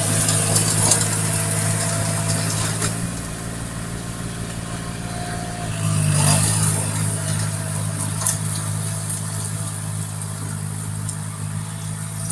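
Farm tractor engine running steadily, with a louder swell about six seconds in and light rattling over it.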